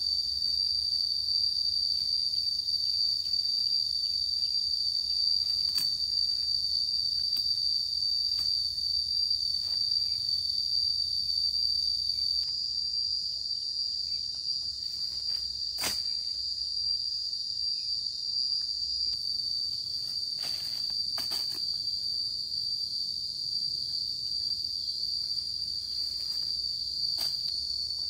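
Steady, high-pitched chorus of insects, with an occasional faint click or knock.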